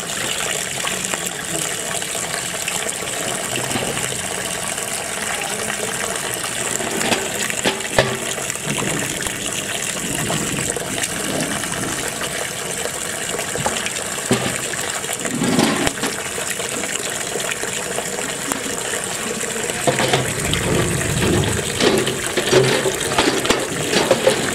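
Water gushing steadily into a large aluminium pot full of raw chicken drumsticks, with splashing and sloshing as chicken is washed by hand in water; the splashing gets busier near the end.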